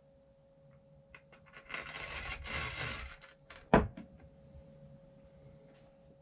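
Hands working on the parts of a suspension seatpost during greasing: a few small clicks, about a second and a half of rubbing or rustling, then one sharp knock, the loudest sound, about halfway through.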